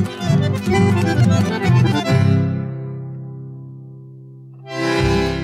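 Background instrumental music: quick rhythmic notes over a bass line, ending about two seconds in on a long held chord that slowly fades. A new chord comes in shortly before the end.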